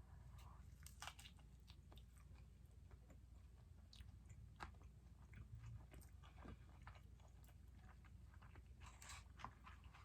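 Faint chewing and mouth sounds of a person eating, with scattered small clicks and crunches and a short cluster of them about nine seconds in.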